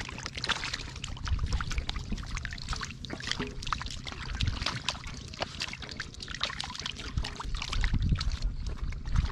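Muddy shallow water splashing and sloshing as hands grab at catfish thrashing in a mud puddle, in many quick irregular splashes.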